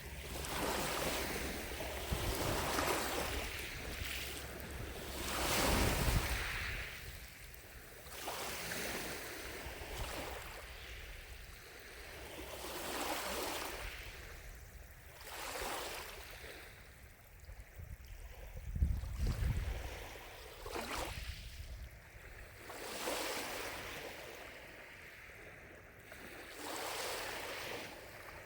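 Gentle lake waves washing in, a soft wash that swells and fades about every two seconds, with a couple of low wind rumbles on the microphone.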